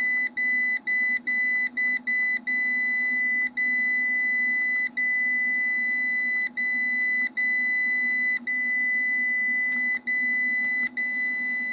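MPP Solar LV6548 inverter's fault-alarm buzzer sounding a steady, high-pitched tone, broken by short irregular gaps. It is alarming for an F11 (PV over-voltage) fault code that the inverter shows with no PV connected.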